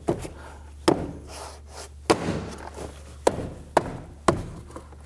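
Plastic interior door panel being knocked into place, its retaining clips snapping into the door: a series of about six sharp knocks, roughly a second apart.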